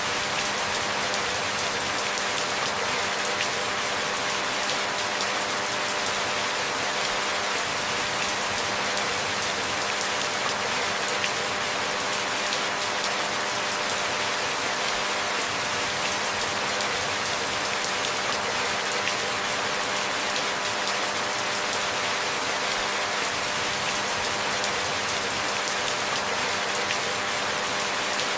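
Steady rain falling, an even hiss of many drops with no pauses or surges.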